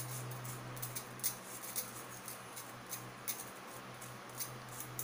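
Handheld wire-mesh sieve being shaken and tapped over a stainless steel bowl to sift baking powder: a run of light, irregular ticks, about two a second, over a steady low hum.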